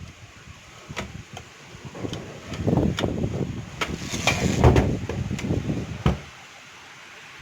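Sharp metallic clicks and clattering from a partly dismantled Godrej typewriter's mechanism being handled, busiest and loudest for a few seconds in the middle.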